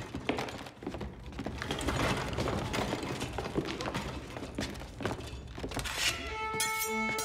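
Busy clatter and shuffling of furniture, tableware and footsteps: many knocks over a steady rustle. About six seconds in, bowed string instruments begin to play sustained notes.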